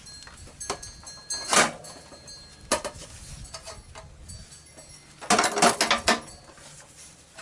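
Metal clinks and knocks from work on a motorcycle's exhaust pipes, as parts and hand tools are handled around the engine. There is one sharp clank about a second and a half in, and a quick cluster of louder clanks near six seconds.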